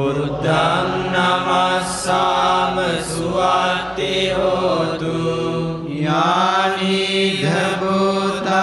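Pirith chanting: Pali Buddhist protective verses recited in long, drawn-out melodic phrases over a steady low held tone.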